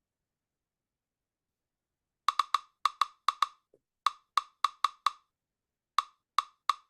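Calculator keys pressed one after another, a string of short sharp clicks in quick runs, about fifteen presses, as a sum is keyed in. The clicks start a little over two seconds in.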